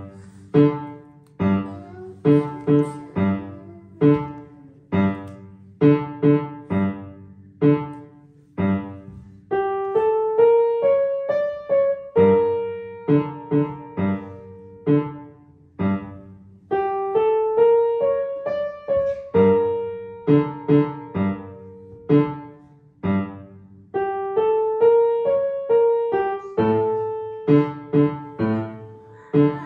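Yamaha upright piano played by a young child: a simple piece of separate struck chords repeating in a low pattern, with a higher, slow stepwise melody coming in about ten seconds in over the low accompaniment.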